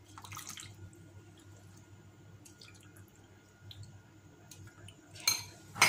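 Metal tongs dropping cooked macaroni into a bowl of broth, with soft drips and small splashes. Two sharp clicks sound near the end.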